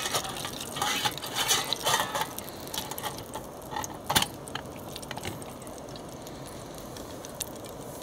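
Steel pot lid clinking and knocking as it is worked shut on the pot, with a single sharp metal click about four seconds in. A steady hiss from the lit camping gas stove runs underneath.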